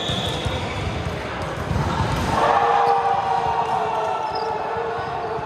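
A ball bouncing repeatedly on an indoor court during play, with a raised voice in the hall about two seconds in.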